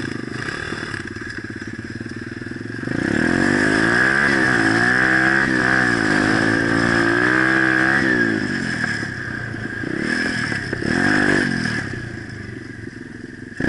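Pit bike's small single-cylinder engine close up: running low for about three seconds, then revving hard as the bike pulls away, its pitch rising and falling with the throttle. It eases off about eight seconds in and revs briefly once more around eleven seconds.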